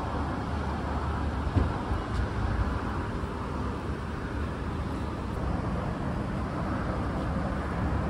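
Steady outdoor road-traffic noise, an even hum of passing cars.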